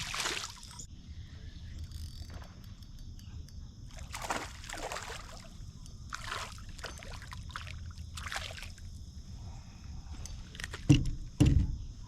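Water sloshing and splashing around a small fishing boat, with several short swishes and two heavy knocks near the end. A steady insect drone runs underneath.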